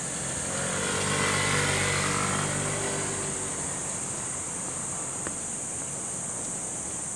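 A motor vehicle passes, its engine hum swelling about half a second in and fading away by about three and a half seconds. Under it runs a steady, high-pitched insect drone.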